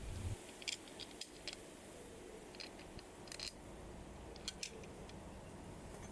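Small metal parts clicking and tapping as bolts and a felling-dog plate are handled and fitted to a chainsaw's clutch cover: a scattering of faint, separate clicks.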